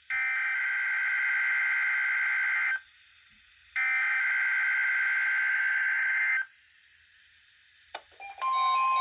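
NOAA Weather Radio SAME data header for the weekly test: two harsh, buzzing digital bursts of about two and a half seconds each, a second apart, through a weather radio's speaker. Near the end a click, then a receiver starts sounding its alert tone, set off by the test.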